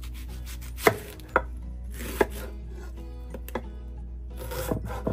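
Kitchen knife chopping on a cutting board: about five separate cuts, the two sharpest about a second in.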